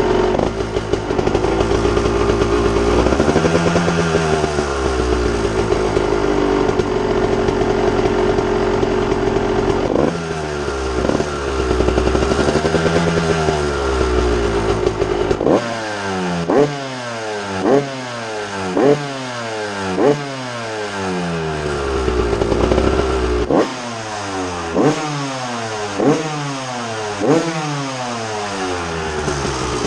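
Honda CR125 two-stroke motocross engine being revved: held at steady revs with two slow swells up and back down, then blipped sharply about once a second, the revs spiking and dropping back each time, through the second half.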